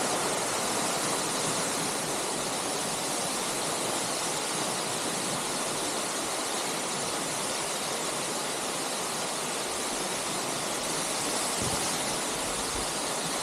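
Waterfall pouring: a steady rush of falling water, with a couple of brief low bumps near the end.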